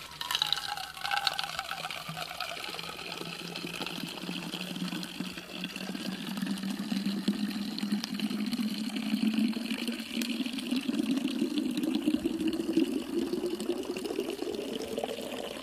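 Water from a hydraulic ram pump's delivery pipe pouring into a plastic 1-liter Nalgene bottle, the filling sound rising steadily in pitch as the bottle fills. The stream fills the liter in about fifteen seconds, roughly a gallon a minute.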